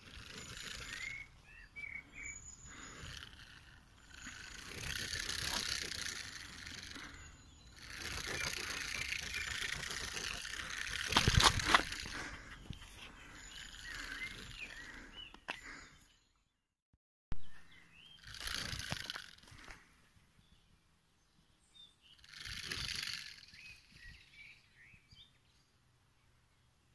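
Crested porcupine rattling its hollow quills as a frightened warning display: a rattlesnake-like noisy rattle in repeated bursts of a few seconds each, with short pauses between them. There is a sharp knock about eleven seconds in, and small birds chirp faintly.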